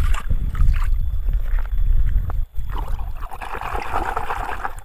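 Hands digging and scraping through sand in a toy dump truck's bed to search for buried toys: a gritty rustling with a low rumble over the first half.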